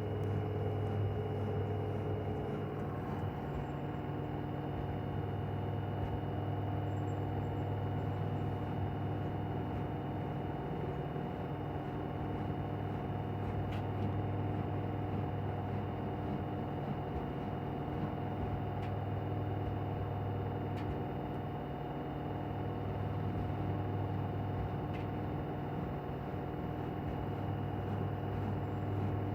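LG front-loading washing machine spinning steadily at high speed in its 1200 rpm spin cycle, a constant humming whine with a few faint ticks.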